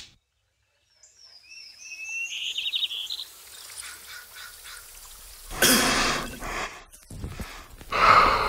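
Birds chirping in short rising trills. Then a man coughs loudly, about halfway through and again near the end.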